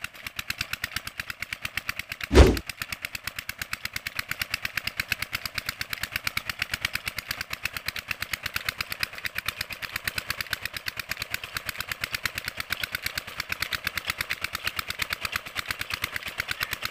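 A 16-horsepower single-cylinder Peter diesel engine driving a tube-well pump, running at a steady, even beat of several strokes a second, with water gushing from the 4-inch delivery pipe. A single loud thump comes about two and a half seconds in.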